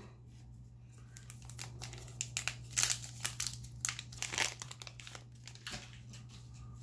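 Foil trading-card pack wrapper crinkling and crackling as it is torn and pulled open, busiest from about a second and a half in to around five seconds, over a steady low hum.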